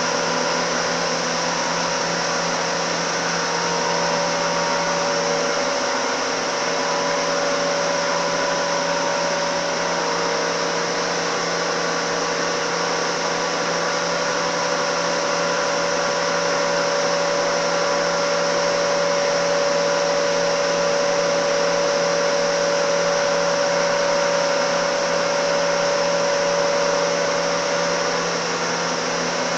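Spice grinding mill (pulverizer) running steadily under power, a constant machine noise with several steady tones held throughout.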